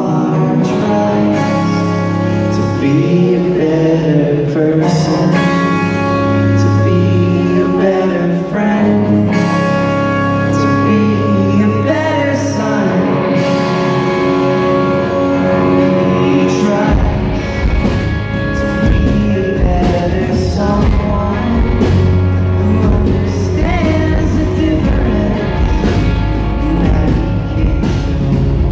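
Live rock band playing, with a sung lead vocal over electric guitars, recorded from the crowd. About two-thirds of the way through, the bass and drums come in heavily.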